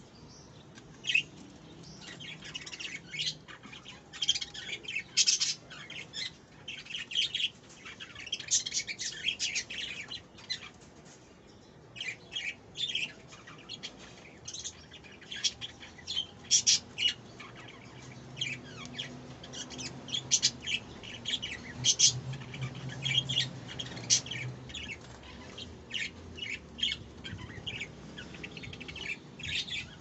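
Budgerigars chirping: many short, sharp chirps in quick, irregular runs, one after another.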